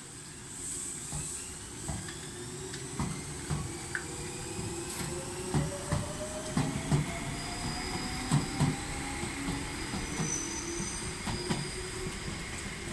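Toyohashi Railway 1800 series electric train pulling away from a station. A whine climbs steadily in pitch as it gathers speed, and the wheels knock and clack over rail joints in uneven beats.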